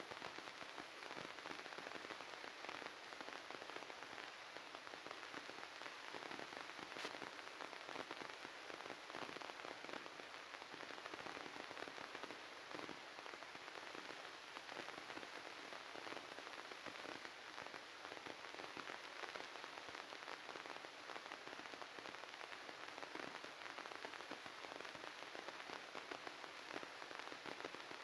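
Steady crackling static hiss, a dense fizz of fine crackles without pause: glitched, corrupted audio in place of the real sound.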